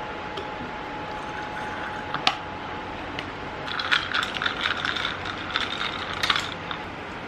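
Kitchen handling sounds: a faint steady hum that stops with a click about two seconds in, then a couple of seconds of rattling and clinking of dishes or utensils.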